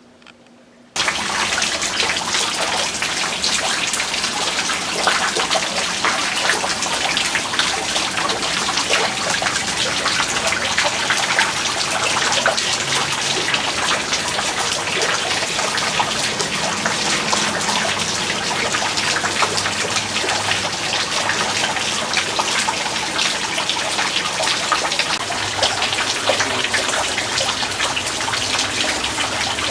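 Tap water turned on about a second in and running steadily, splattering as a doll's hair is rinsed under it.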